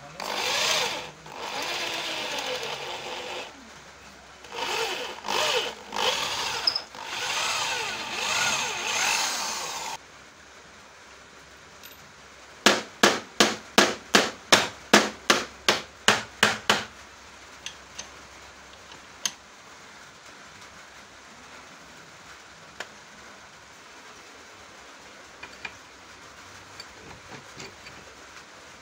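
Corded electric drill boring through a hole in the vise's base plate into the wooden bench top, run in two spells with a short break. About halfway through come a dozen quick sharp hammer strikes, about three a second, knocking a bolt down into the hole.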